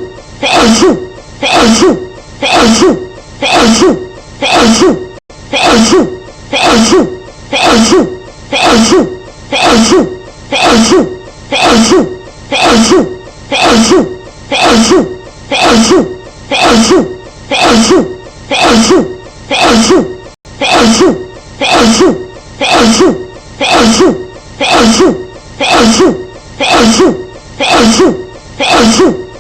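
A woman's short sneeze looped over and over, repeating at an even rhythm about every three-quarters of a second.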